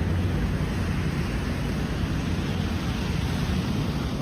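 Steady low rumble with a hiss: vehicle running and road noise.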